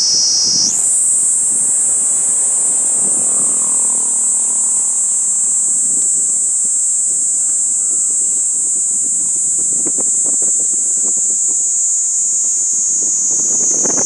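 Kaempfer cicada (niiniizemi, Platypleura kaempferi) singing one continuous high-pitched buzz. The buzz steps up in pitch about a second in and falls back lower near the end.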